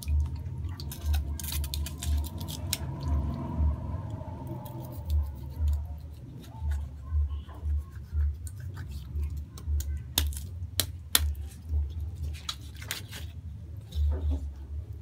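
Large kitchen knife cutting through a raw chicken, with scattered sharp clicks and knocks and a cluster of louder ones about ten seconds in, over an intermittent low rumble.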